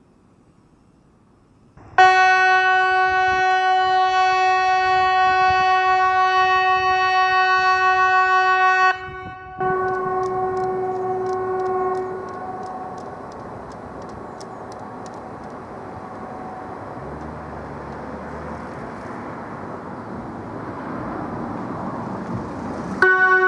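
SiRcom ESP 750 electronic civil-defence siren sounding the Swedish 'Hesa Fredrik' test signal: a loud, steady single-pitched tone rich in overtones starts about two seconds in and holds for about seven seconds, then cuts off. A fainter copy of the tone carries on for about three seconds and fades. After a pause of low background noise, the tone starts again near the end, matching the test pattern of seven seconds of tone and fourteen of silence.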